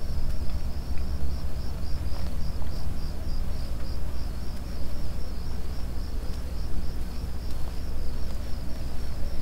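Crickets chirping in a steady pulse, about three or four chirps a second, over a low steady drone: night-time ambience on a horror film's soundtrack.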